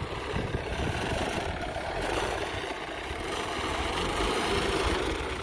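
Off-road 4x4's engine running steadily under load as the vehicle crawls nose-up out of a steep dirt gully.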